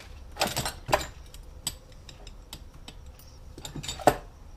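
Irregular metallic clicks and clinks of a hand tool and small bolts being handled on an engine case, with the sharpest knock about four seconds in.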